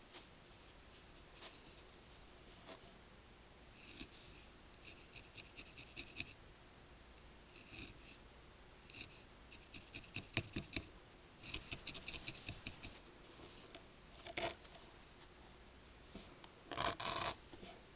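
Felting needle stabbing repeatedly into a wool ball on a foam pad: faint quick pokes, several a second, in bursts with pauses, then a louder short rustle near the end.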